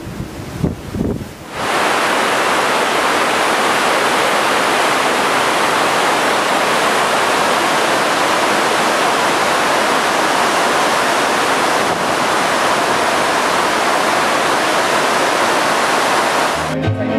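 Steady, loud rush of churning water in a cruise ship's wake, starting suddenly about a second and a half in after some low wind buffeting. Violin music cuts in near the end.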